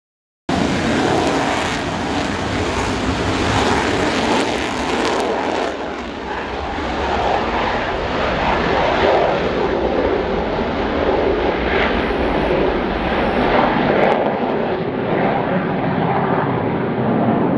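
Eurofighter Typhoon's twin jet engines in afterburner on takeoff: a loud, steady jet rumble that starts abruptly about half a second in and carries on as the fighter lifts off and climbs away.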